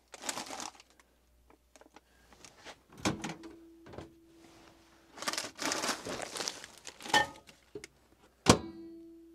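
Rustling and a few knocks as broccoli is got ready for the microwave, then one sharp loud click about eight and a half seconds in, like a microwave door latching shut.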